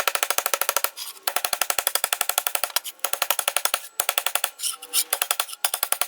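Hammer blows on steel braces against a vise's anvil, ringing with each strike, coming about ten a second with a few short pauses: the dimpled metal around drilled-out spot welds being flattened before welding.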